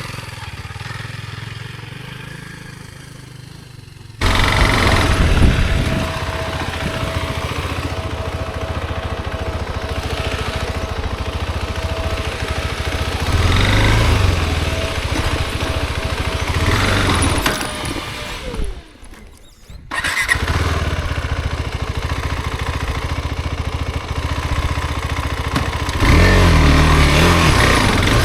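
Off-road motorcycle engine running under way, rising in revs several times. It starts loud suddenly about four seconds in and cuts out for about a second past the middle.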